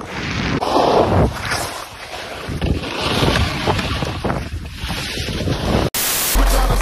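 Wind buffeting the microphone over skis scraping and hissing across hard-packed snow. About six seconds in it cuts off into a short burst of TV-static hiss, then a deep bass beat begins.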